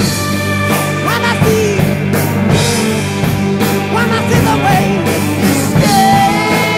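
Rock music with a singing voice over steady guitar and drums.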